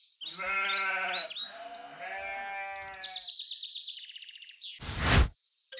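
Two wavering, bleat-like animal calls, the second one higher. Rapid high chirping follows, then a short loud whoosh about five seconds in.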